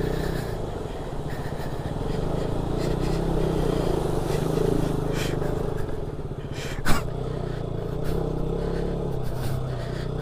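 Motorcycle engine running steadily at low speed while the bike is ridden through a shallow water crossing on a rough track. There is one sharp knock about seven seconds in.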